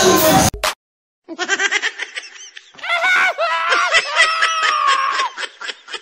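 Loud crowd noise cuts off abruptly about half a second in. After a brief gap, laughter follows in quick repeated bursts.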